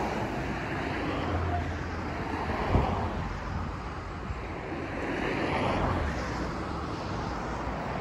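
Rumble of a train that has just passed along the Tokaido Main Line's level crossing, now heading away: a steady noisy roar that swells and eases slightly.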